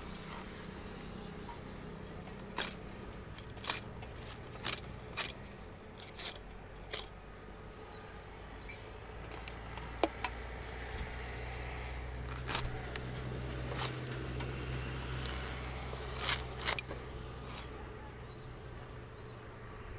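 Dry, fibrous palm leaf sheaths being torn away by hand at the tree's crown: irregular crackling and sharp snaps of brittle fibre breaking, a dozen or more scattered through, over a steady low rumble.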